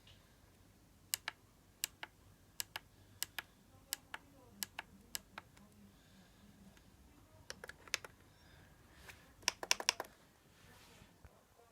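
Sharp plastic clicks and taps from handling an HP Omnibook XE3 laptop, like keys being pressed one at a time, with a quick cluster of clicks about three quarters of the way through.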